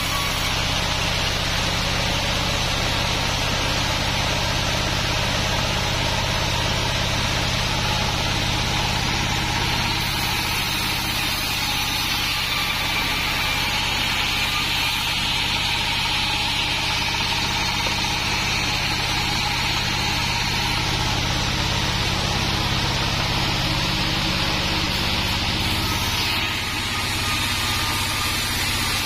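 Large 36-inch sawmill band saw running and cutting through a log: a steady machine drone with the rushing noise of the blade in the wood, dipping briefly near the end.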